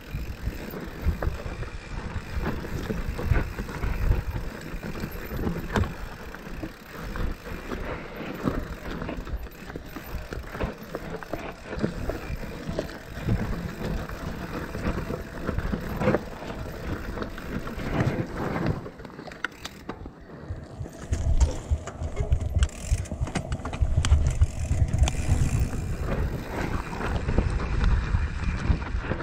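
Mountain bike riding down a rough rocky trail: tyres crunching over gravel and stones with a constant clatter of the chain and frame, and heavier knocks in the last third.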